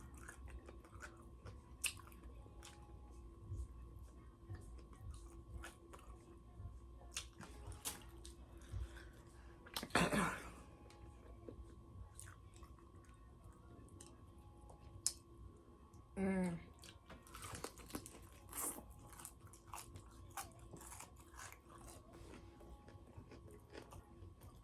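Close-mic chewing of crispy fried chicken: faint, irregular crunches and wet mouth clicks. Two louder short mouth sounds stand out, about ten and sixteen seconds in.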